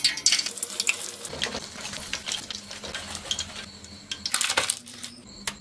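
Battered egg halves deep-frying in hot oil in a steel pot, crackling and sizzling throughout, with metal clinks of the spoon and wire strainer against the pot; a loud cluster of clinks about four and a half seconds in as the strainer lifts the eggs out.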